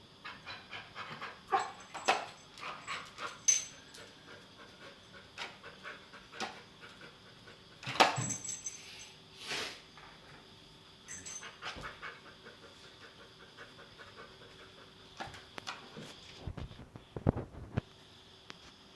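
A dog panting rapidly in quick runs, with scattered sharp knocks and scrapes, the loudest about halfway through and a few dull thuds near the end, as it scuffles with a vacuum cleaner.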